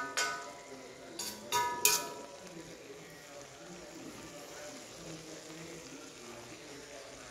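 A metal spoon strikes and scrapes against a thin metal wok: about five sharp, ringing clinks within the first two seconds. After that only a faint steady hiss.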